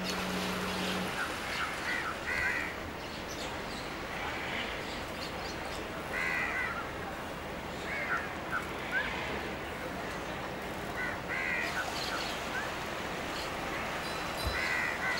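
Birds calling outdoors: short calls repeated every second or two, often in quick pairs, over a steady background noise.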